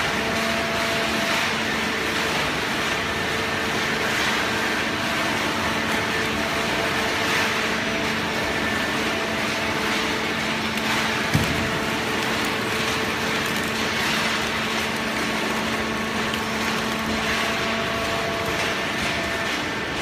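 Hydraulic cardboard baling press running: a steady machine hum, with several held tones over a broad noise, from its hydraulic drive. A single short knock sounds about eleven seconds in, and the lower tones drop away near the end.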